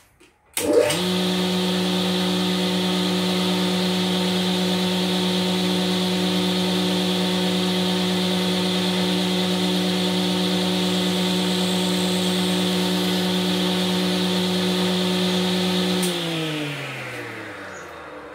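Woodworking machine's electric motor driving a horizontal drill chuck that bores into the edge of a wooden board: switched on with a click, it runs with a steady hum, then is switched off near the end and winds down with falling pitch.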